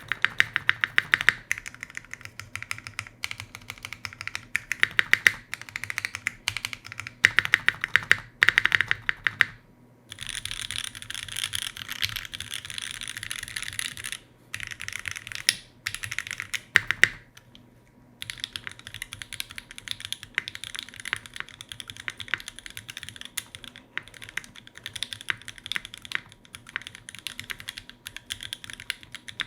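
Typing test on a Keycult No. 1 Rev 2 custom mechanical keyboard with lubed, filmed JWK H1 switches on 62 g springs and GMK keycaps: fast runs of keystrokes broken by a few short pauses.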